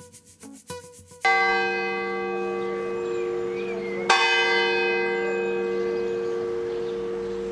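Church tower bell struck twice, about three seconds apart. Each stroke rings on as a long hum that slowly fades.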